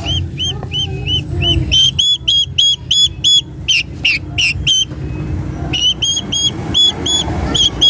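Young fowl chicks peeping in a rapid series of short, shrill calls, about three a second, with a brief pause a little past halfway.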